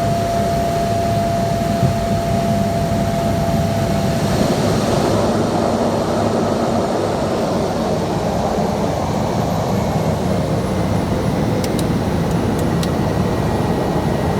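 Cessna Caravan's PT6A turboprop engine and propeller running steadily and loudly. A steady whine heard at first stops about four seconds in.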